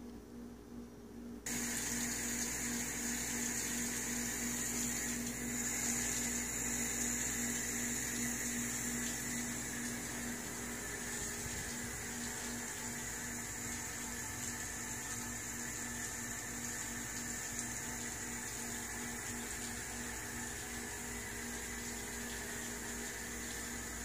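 Terrarium waterfall running: a steady trickle and splash of water down the rock wall, coming in suddenly about a second and a half in, over a steady low hum.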